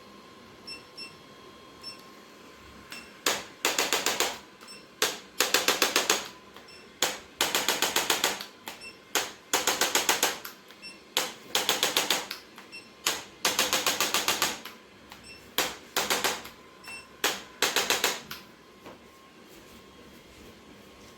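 Handheld chiropractic percussion adjusting instrument firing repeated rapid bursts of clicks, each burst about half a second to a second long and usually led by a single click, with short pauses between the bursts.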